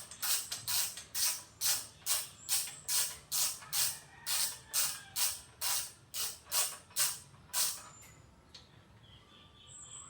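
Socket ratchet being worked back and forth, undoing a nut, in a steady run of rasping clicking strokes about two to three a second that stops about eight seconds in.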